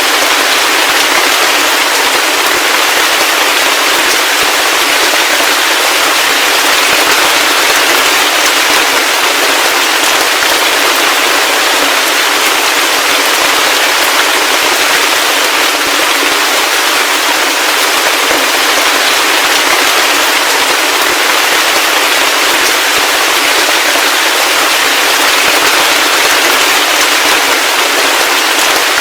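Heavy rain falling steadily, a dense, even hiss of many drops.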